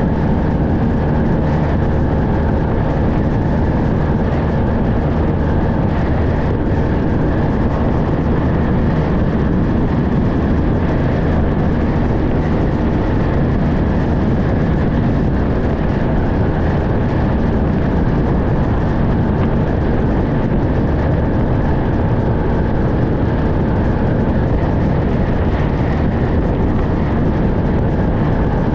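2017 Honda VFR1200X motorcycle cruising at steady highway speed. Loud, even wind rush over the microphone with the engine's steady drone underneath, unchanging throughout.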